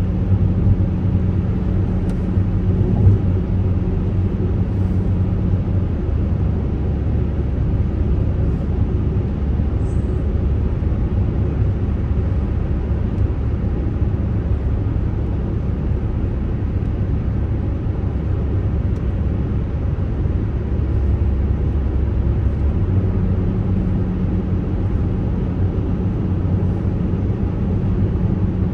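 Steady low rumble of a car's engine and tyres on the road, heard from inside the cabin while driving. A low hum sits in the rumble, drops away about six seconds in and comes back near the end.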